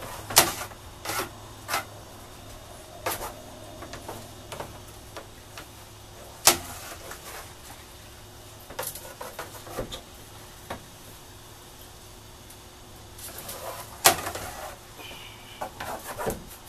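Irregular sharp knocks, taps and clatter from a rod and a foam can's straw being worked inside a plastic float tube, with a brief hiss near the end. A faint steady hum runs underneath.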